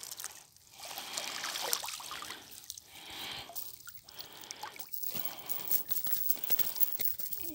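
Water dripping and trickling off a monofilament fishing net as it is hauled by hand out of the water, with many small wet clicks and splashes from the mesh.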